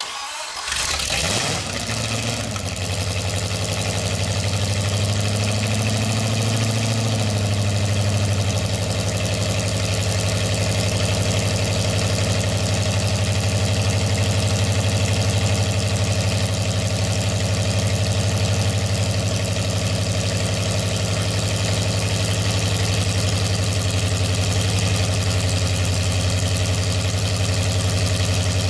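Hot-rodded 1939 Ford flathead V8-60 with dual carburettors, on its first start after assembly: it catches within the first couple of seconds, speeds up a little from about five to eight seconds in, then settles into a steady idle.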